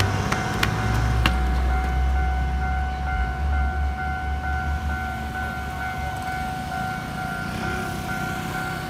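Taiwanese railway level-crossing warning bell ringing with a repeating electronic ding as the barriers lower, signalling an approaching train. Low engine rumble of waiting traffic underneath, fading after the first few seconds.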